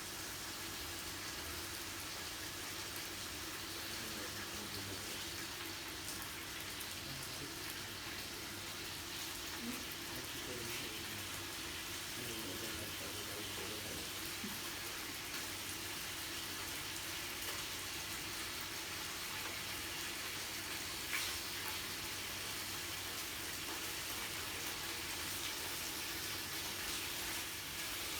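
Steady sizzling hiss of meat grilling on a yakiniku grill, with a single light click about three quarters of the way through.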